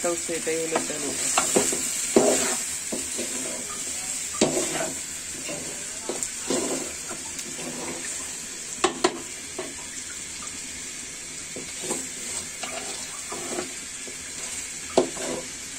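Metal spatula scraping and knocking against a metal pot as chicken and potato curry is stirred and fried over a gas flame, with a steady sizzle underneath. The masala is frying down to the stage where the oil separates.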